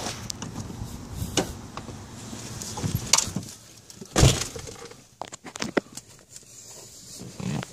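A car door opened and slammed shut, the slam a loud thump about four seconds in, followed by a few light clicks.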